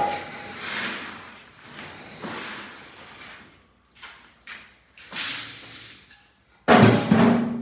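Steel bowl and metal bucket being handled: several rustling pours and scrapes, then a louder clatter near the end.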